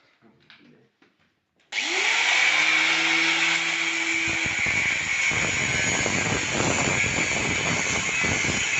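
A power tool starts abruptly about two seconds in, its motor whine rising and then holding steady before dropping away, under a loud, rough, crackling grinding noise that carries on to the end.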